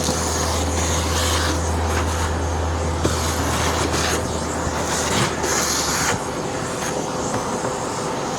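Hoover NanoLite vacuum running, a steady motor hum with air rushing through the freshly declogged hose in several surges. The low rumble drops away about six seconds in.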